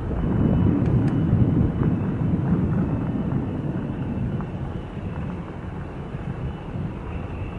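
Low rumbling of a bulk carrier's diesel engine and an escorting tugboat heard across the harbour water, louder for the first few seconds and then easing off, with a faint steady high whine underneath.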